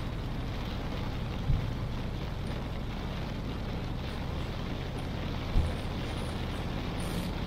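Car driving in heavy rain: a steady noise of rain and road with a low rumble underneath, and two brief low thumps, one about a second and a half in and one past the middle.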